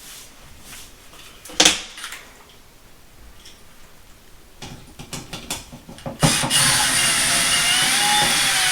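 A sharp knock, then a few light clicks of handling, then a power drill running steadily for about three seconds from about six seconds in.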